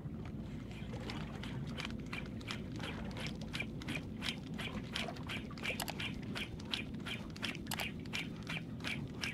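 Fishing reel cranked fast during a fast-jig retrieve: an even, rhythmic ticking of about three to four clicks a second.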